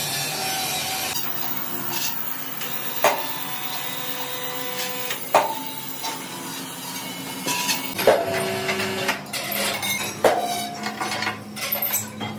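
Metal clanking: four sharp clangs that ring on briefly, a couple of seconds apart, with lighter clinks between, from stacked steel disc blanks and the lifting chains of a crane sling knocking as the load is moved and set down.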